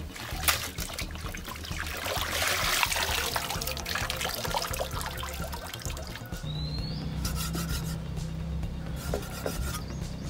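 Water sloshing and splashing as leafy greens are rubbed and rinsed by hand in a plastic basin of water, with a louder rush of water about two seconds in.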